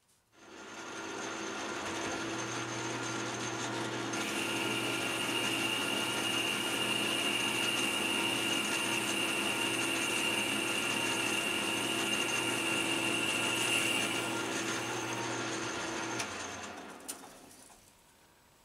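Atlas metal lathe spinning up and running steadily, its motor and gears whirring, while a boring bar cuts the bore of a hexagonal metal part. A high steady whine joins about four seconds in and stops about fourteen seconds in, and the lathe winds down near the end.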